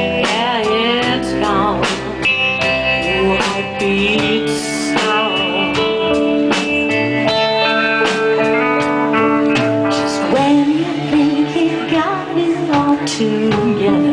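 Live rock band playing an instrumental stretch between sung lines: electric guitar over bass and held keyboard notes, with a steady drum beat.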